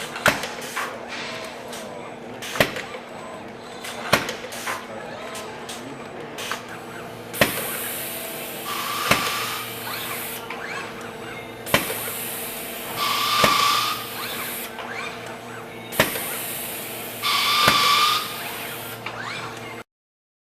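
Robotic furnace loader cell with a FANUC LR Mate robot at work: a steady machine hum with a sharp clack every couple of seconds, and, from about seven seconds in, three long hissing stretches with a high whistling tone in them. The sound cuts off suddenly near the end.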